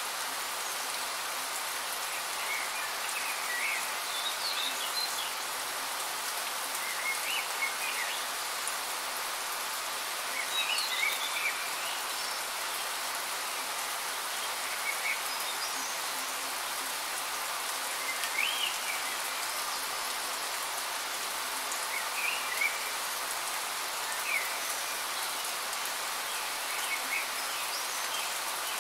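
Rain falling steadily, with short high chirps every few seconds.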